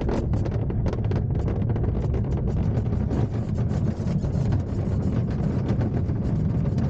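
Duo Discus glider's cockpit during the launch: a loud, steady rumble with rapid knocks and rattles as the glider is pulled along the ground and accelerates, the rattling thinning out as it goes.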